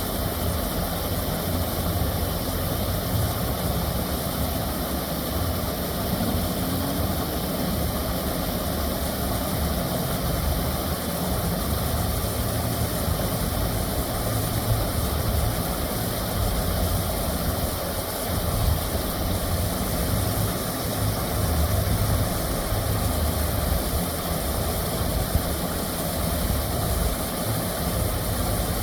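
Water rushing steadily over a dam spillway: a constant, even roar of noise with a deep rumble underneath.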